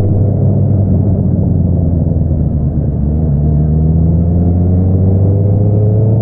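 Honda CBR650R's inline-four engine running through an Akrapovič single-outlet exhaust, holding steady revs and then rising gradually in pitch through the second half as the bike accelerates.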